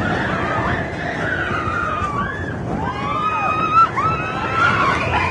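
Mine-train roller coaster rolling fast along its track with a steady rumble, overlaid with high, wavering squeals and a brief louder knock about four seconds in.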